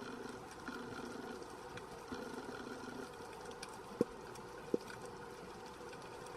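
Underwater sea ambience: a low hum swelling and fading about once a second, under scattered faint crackling clicks. Two sharp low knocks come about four seconds in, less than a second apart.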